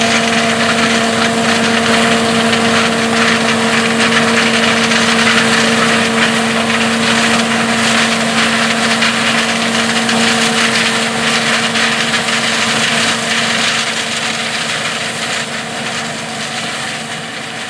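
John Deere 4420 combine with its six-cylinder diesel running steadily under load while harvesting corn, engine and threshing machinery together with a steady droning note; the sound gradually fades near the end.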